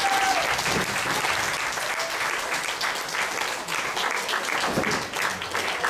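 A roomful of people applauding, many hands clapping together steadily.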